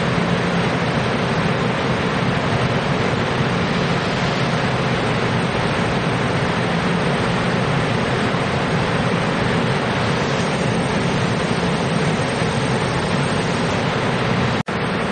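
Taiwan Railways EMU500 electric commuter train at the platform: a steady rushing noise over a low hum, breaking off for an instant near the end.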